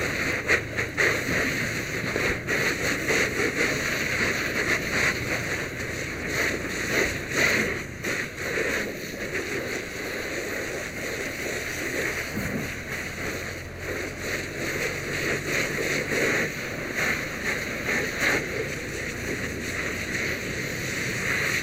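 Fire hose nozzle spraying water onto a burning car, a steady rushing hiss that swells and eases, with the water turning to steam on the fire.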